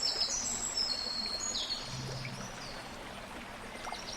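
A steady rush like flowing water, with birds chirping over it during the first second and a half.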